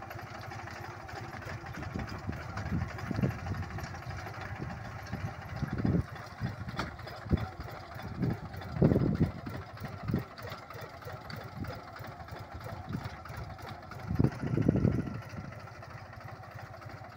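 Captain 250 mini tractor's engine running steadily as it pulls a cultivator through the crop rows. Several low thumps come through on top, the loudest about nine seconds in and again around fifteen seconds in.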